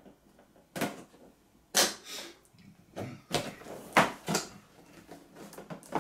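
Large cardboard toy box being handled, tipped over and slid on a wooden table: a series of separate knocks and scrapes with faint rustling between.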